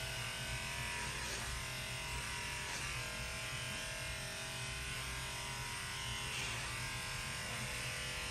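Electric dog grooming clippers running steadily while trimming a Shih Tzu's coat.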